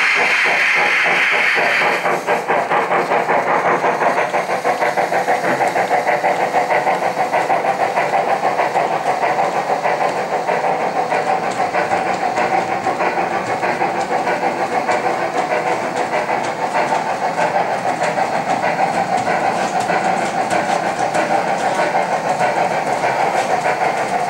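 Gauge 1 model steam locomotive hissing steam, then chuffing in a fast, even rhythm as it runs with its goods train, wheels clattering over the rail joints. The hiss gives way to the chuffing about two seconds in.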